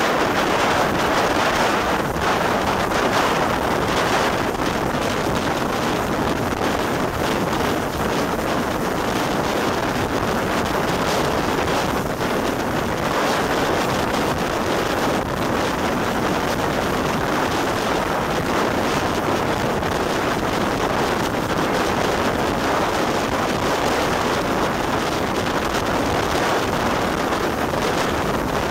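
Steady wind rush on the microphone over the running noise of a train hauled by the GNR V class 4-4-0 compound steam locomotive No. 85 Merlin at speed, heard from an open carriage window just behind the tender.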